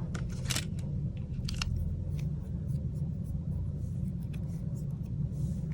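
A few light clicks and taps from handling an opened smartphone and its plastic back cover, over a steady low hum.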